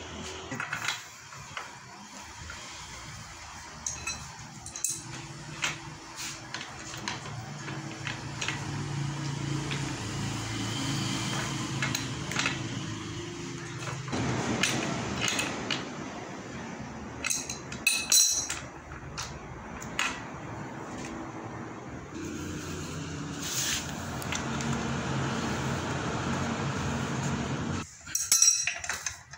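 Scattered metal clinks, taps and handling noise as a square-taper cartridge bottom bracket and its cups are greased and threaded by hand into a bicycle frame's bottom bracket shell, over a steady low hum. A sharp cluster of clinks comes about two-thirds of the way in and another near the end.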